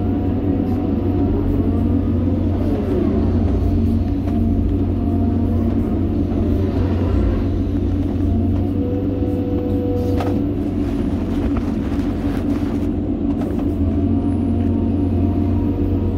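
John Deere 350G excavator's diesel engine running steadily under digging load, heard from inside the cab, with the hydraulics whining and shifting in pitch as the boom and bucket move. A single sharp clank comes about ten seconds in.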